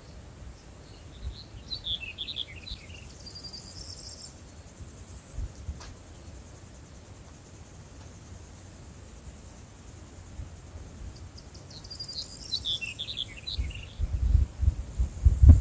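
Outdoor nature ambience: a bird sings two short chirping phrases, one near the start and one near the end, over a faint high steady insect trill. A low rumble rises near the end and is the loudest sound.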